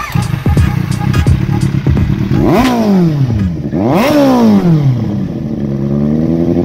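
Kawasaki Z800's inline-four engine idling, with the throttle blipped twice: each time the revs rise sharply and fall back. At first there are short clattering, falling sounds before the engine note settles.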